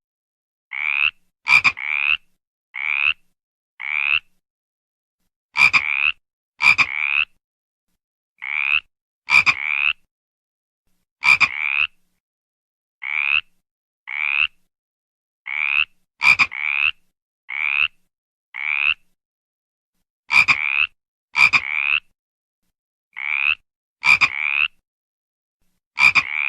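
A frog croaking: short, rising calls repeated roughly once a second, some in close pairs and some opening with a sharp click. The gaps between calls are dead silent.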